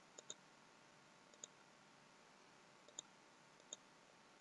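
Faint computer mouse clicks over near silence: a quick double click near the start, then three single clicks spaced about a second apart.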